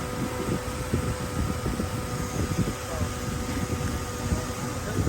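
Diesel engine of heavy earthmoving machinery running steadily, with a constant hum over an uneven low rumble.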